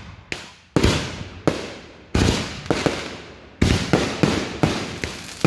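Fireworks going off in a rapid, uneven run of about ten sharp bangs, each fading away before the next.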